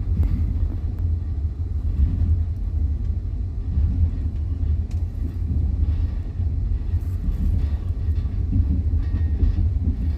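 Steady low rumble of a moving passenger train, heard from inside the carriage, with a few faint clicks of the wheels over the rails.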